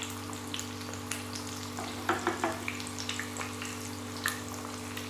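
Methi vade (fenugreek fritters) sizzling and crackling as they fry in hot oil in a pan, with a few light knocks about two seconds in.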